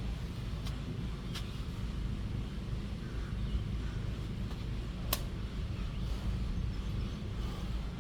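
Steady low outdoor rumble, with three short sharp clicks, the loudest about five seconds in.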